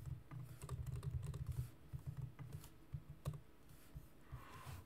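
Typing on a computer keyboard: a quick, irregular run of keystrokes that thins out after about two seconds.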